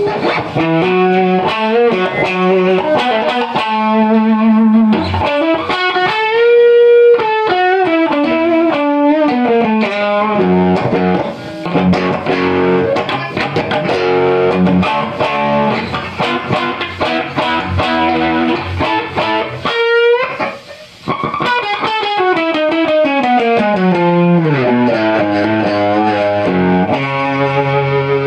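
Electric guitar played through a prototype compressor/fuzz/sustainer circuit. It plays long held notes with bends and vibrato, then slides down the neck late on.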